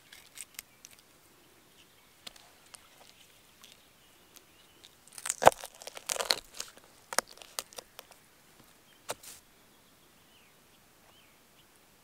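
Knife cutting into a trout against a wooden log, with a burst of crunching and tearing about halfway through as the blade goes through the bones, then a few single sharp clicks.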